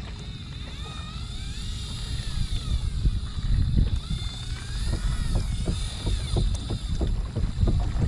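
Wind buffeting the microphone over water sloshing around a small fishing boat, with faint wavering high squeals and a run of short knocks from handling gear in the second half.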